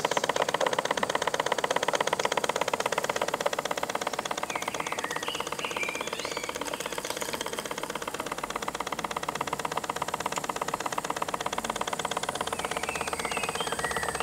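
Small 1930s live-steam engine of a model steam launch running steadily at a rapid, even beat.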